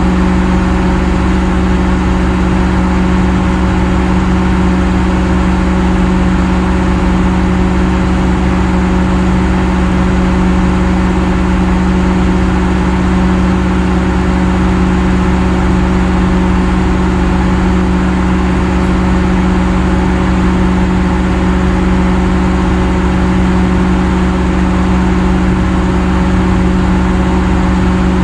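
Heavy machine's engine running steadily at an even speed, a constant hum that does not change.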